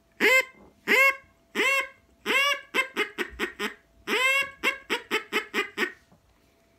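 Homemade reed duck call, made of two plastic tubes with a wooden tone board, blown in quacks meant to imitate a young duck. Three single quacks come first, well spaced, then twice a longer quack followed by a quick run of about five to seven short quacks, ending about six seconds in.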